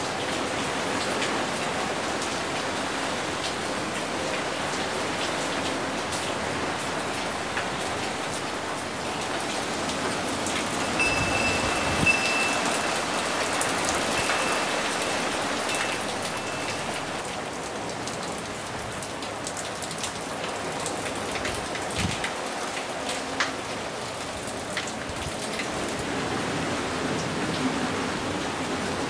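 Steady rain falling on a swimming pool's water and a wet brick patio. A thin high ringing tone sounds for a few seconds near the middle.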